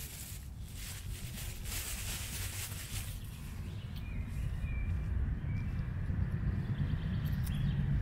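Woodland ambience: a steady low rumble with a hiss over the first few seconds, and a bird calling briefly a few times about four seconds in.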